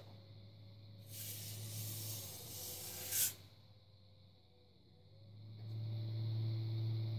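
Electric pottery wheel's motor humming steadily, dying away about two seconds in and starting up again near the end. While the hum fades, a hiss lasts about two seconds and ends in a sharp peak.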